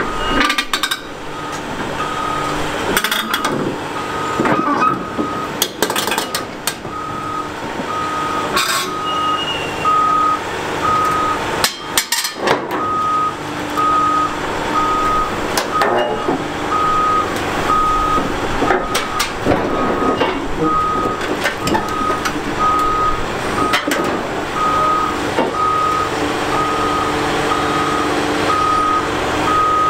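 Cat 395 excavator's travel alarm beeping steadily as the machine tracks up onto a trailer, over its running diesel engine, with scattered clanks and knocks from the steel tracks.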